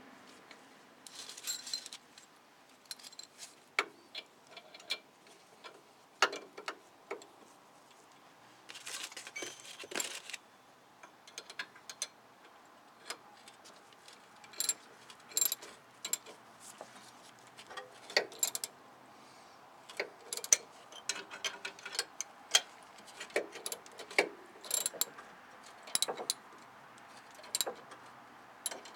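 Metal hand tools clicking and clinking against rusty brake hardware at the caliper and rotor: irregular sharp clicks with a few short bursts of rapid ticking, like a ratchet being worked.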